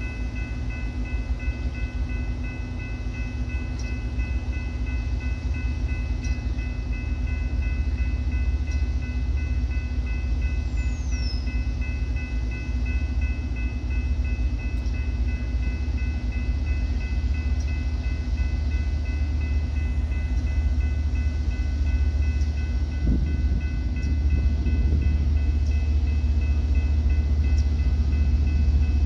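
BNSF coal train approaching behind a GE ES44AC diesel-electric locomotive, its low engine rumble slowly growing louder as it nears. A steady high whine runs over the rumble.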